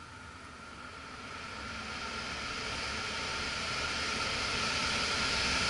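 Rescue X13 ECM blower motor, freshly installed in place of a dead factory X13, starting up in a Heil air handler: the blower wheel and rushing air grow steadily louder as the motor ramps up to speed.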